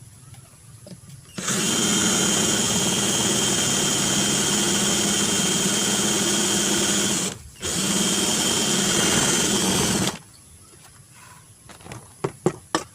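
Electric hand drill running as it bores through melamine ware to widen a drainage hole: one run of about six seconds, a brief stop, then a shorter run of about two and a half seconds. A few light knocks follow near the end.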